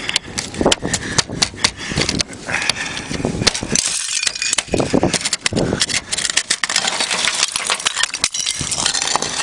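A thick sheet of ice from a frozen car cracking and clinking as it is broken and handled: many sharp, irregular clicks and cracks with scraping in between.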